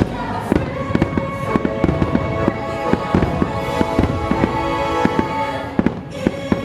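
Fireworks going off in many quick, irregular pops and crackles, over the show's music playing throughout.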